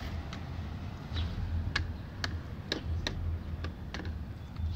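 Chickens pecking at cracked corn: sharp, irregular beak taps, about seven in all, over a low steady rumble.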